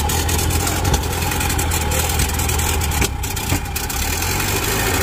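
Ford Model A's four-cylinder flathead engine idling steadily.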